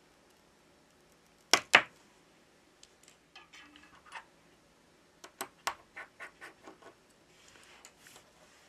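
Small clicks and taps of fingers and tools handling the internal parts of an opened Samsung Galaxy S20 Ultra smartphone. There are two sharp clicks about one and a half seconds in, then a run of lighter irregular ticks, and a short soft scratch near the end.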